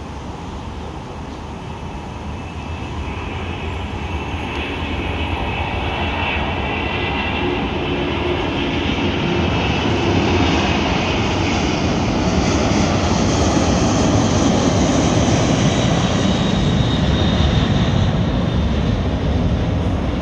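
The three jet engines of a McDonnell Douglas MD-11F freighter at takeoff power through the takeoff roll and initial climb: a loud, steady rushing noise with a high whine in it. It grows louder over the first ten seconds as the aircraft lifts off and climbs nearer, then stays loud.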